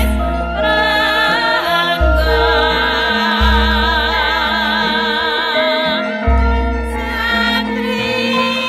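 Music with a singer holding long notes with strong vibrato, over deep bass notes that change every second or two.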